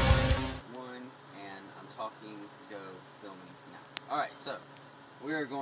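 Steady, high-pitched chorus of insects. The tail of electric-guitar music cuts off about half a second in.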